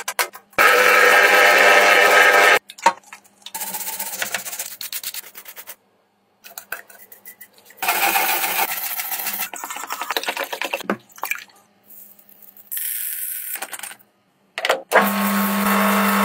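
A series of short, separate workshop sounds with silent gaps between them: noisy bursts of scraping and scrubbing on metal parts, then near the end a metal lathe starting to spin with a steady hum.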